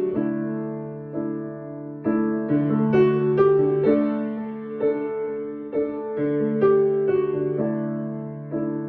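Piano playing a slow hymn interlude between sung verses, with struck chords that ring and fade one after another.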